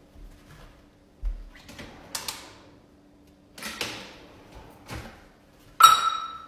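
Kitchen handling noises: a low knock, a couple of brief rustling scrapes and a click, then near the end a sharp metallic clank that rings briefly, as metal cookware or a utensil is knocked at the stove.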